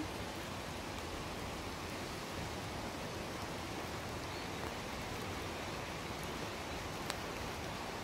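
Steady hiss of rain falling on a forest.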